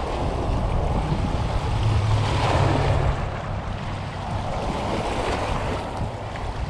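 Small waves washing and breaking against the rocks of a riprap shoreline, swelling a couple of times, with wind buffeting the microphone.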